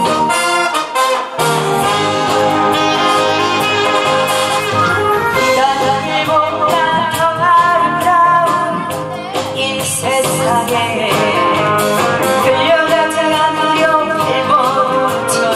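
A woman sings a Korean trot song into a microphone over instrumental accompaniment. The accompaniment plays alone at the start, with a short dip about a second in, and her voice comes in a few seconds later.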